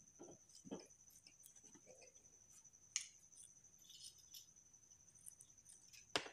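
Near silence: room tone with a faint steady high-pitched whine and a few soft handling clicks, one sharper click about three seconds in.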